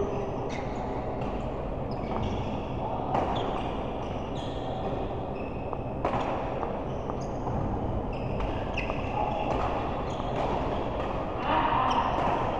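Indoor racket-sport doubles play: repeated sharp hits and many short, high squeaks of shoes on the court floor over a steady hall background.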